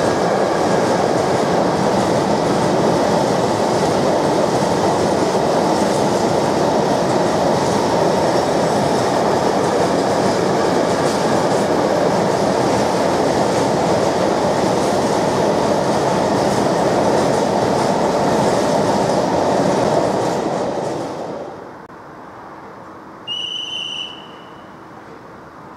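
Freight train of open wagons passing at speed: a steady rolling rail noise that drops away about four-fifths of the way through. A short high-pitched tone of under a second follows over quiet station background.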